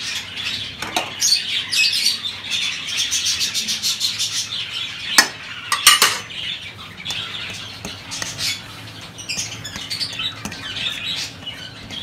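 Budgies chattering and chirping steadily, with a few sharp clinks of a steel spoon against a steel plate and bowls about a second in and again around five to six seconds in, as soft food is portioned out.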